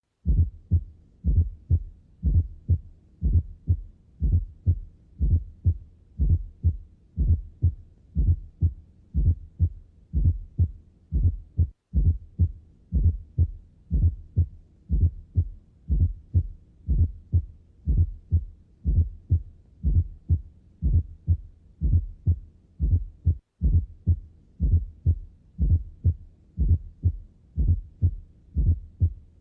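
Recorded human heart sounds: the low lub-dub thuds of the heartbeat repeating in a steady rhythm, with a brief break about twelve seconds in and again about twenty-three seconds in.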